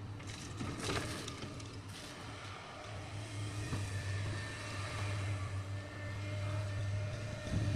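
Heavy diesel engine of an excavator running steadily, getting a little louder in the middle, with a short noisy rush about a second in and a sharp knock near the end.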